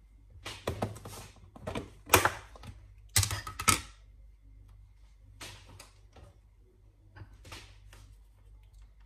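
Clicks, knocks and short rattles of a spice jar and measuring spoon being handled as crushed chilli is fetched and opened, the loudest about two seconds in and a cluster between three and four seconds.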